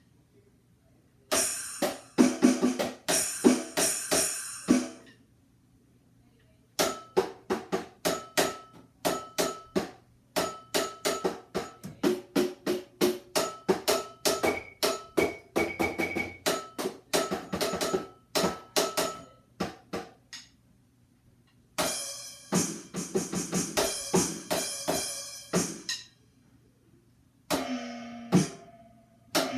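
Drum beats played in fast runs of sharp hits, with short silent gaps between runs. Some runs use pitched, ringing sounds and cymbal-like hits, typical of an electronic drum with switchable sounds.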